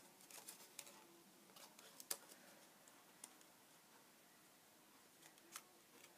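Faint rustling and crinkling of a strip of paper being folded by hand, with scattered small clicks, the sharpest about two seconds in.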